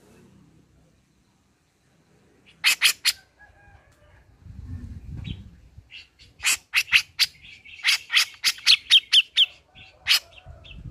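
Grey-cheeked bulbul (cucak jenggot) singing in loud, sharp, clipped notes. There are three quick notes about three seconds in, then a fast run of about a dozen over some three seconds, the last few sliding down in pitch, and one more near the end. A short low rumble comes midway.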